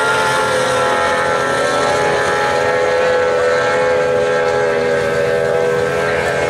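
Racing outboard motors on speedboats running at full throttle: a steady, loud high-pitched engine whine that dips slightly in pitch near the end.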